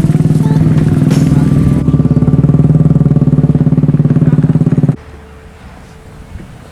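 Motorcycle engine running close by with a rapid, steady firing pulse, cutting off abruptly about five seconds in.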